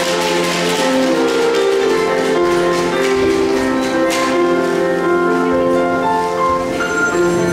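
Music: a melody of held notes over a sustained low note, with a light steady beat.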